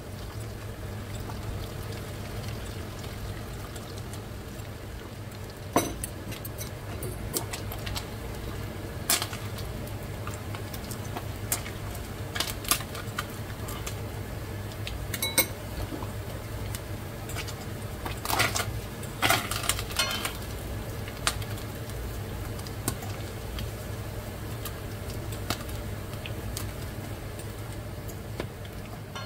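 Smoked fish frying in sunflower oil in a non-stick pan: a steady sizzle with scattered sharp clicks and taps, over a steady low hum.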